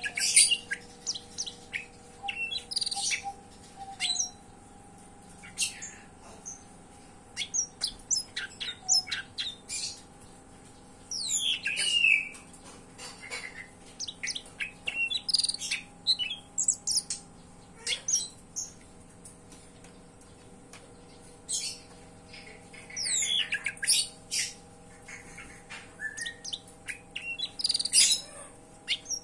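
Cucak ijo (green leafbird) singing in bursts of sharp chirps and quick falling whistles with short pauses between phrases, a song that carries imitations of tree sparrow and prenjak (prinia) calls.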